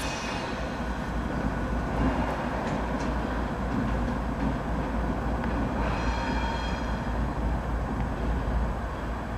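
Norfolk Southern diesel locomotives moving slowly through a rail yard with a steady engine and wheel rumble. A brief high-pitched wheel squeal comes about six seconds in.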